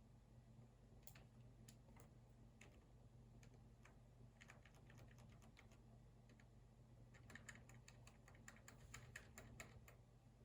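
Faint computer keyboard typing: a few scattered key clicks, a short burst about four seconds in, then a fast run of keystrokes over the last three seconds.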